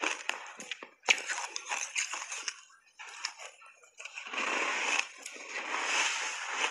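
Matcha-powder-coated ice being chewed: sharp crunches and cracks in the first couple of seconds, then a denser, continuous crunching in the second half.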